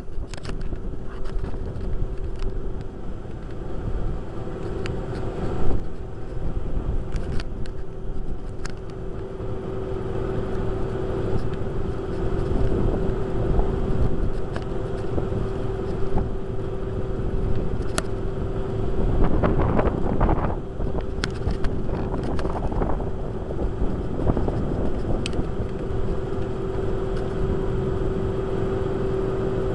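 Electric boat drive running steadily, a constant hum over low rumbling noise of the hull moving through the water; a louder rushing stretch about two-thirds through.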